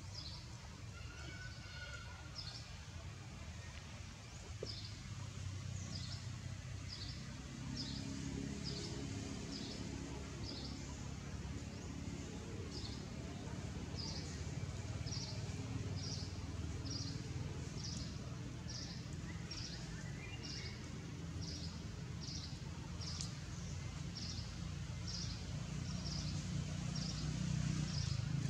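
Outdoor forest ambience: a short, high chirp repeats about once a second over a low, steady rumble that grows louder toward the end.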